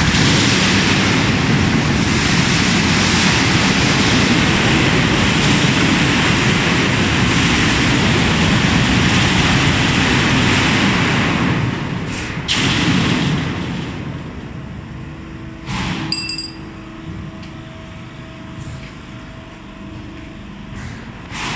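Loud, steady mechanical noise of factory machinery running, with a sharp knock about twelve seconds in. After that it drops to a quieter, steadier hum.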